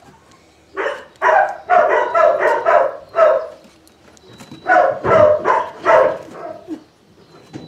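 Three-week-old Malinois puppies yelping and whining in two runs of short, high cries, the first starting about a second in and the second just past the middle.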